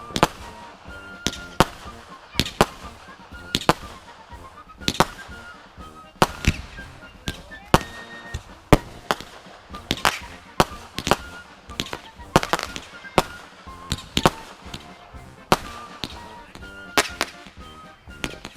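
Fireworks going off in a steady barrage: sharp bangs and pops, close to two a second at irregular spacing, with brief high whistling tones between them.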